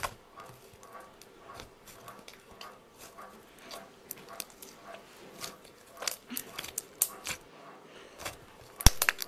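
Soft clay slime being squeezed, poked and folded by hand, making irregular sticky clicks and small pops. The loudest cluster of pops comes near the end.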